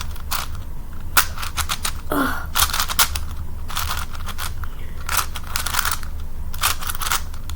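A 5x5 Rubik's cube being twisted by hand: a run of irregular plastic clicks and clacks with short scraping rasps as the layers turn roughly, over a steady low hum. The cube turns badly.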